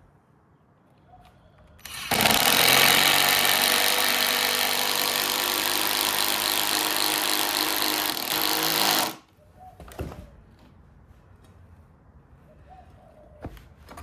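Power drill running hard and continuously into timber for about seven seconds, starting about two seconds in and cutting off abruptly. A few sharp clicks and knocks follow.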